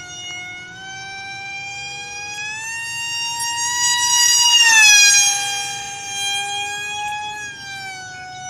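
Radio-controlled model airplane's motor whining at a high pitch. It grows louder and a little higher as the plane comes in, drops in pitch as the plane passes close by about halfway through, then fades.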